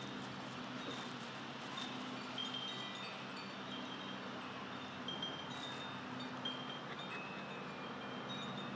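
Wind chimes tinkling: scattered short, high, clear tones, a few each second, over a faint low steady hum.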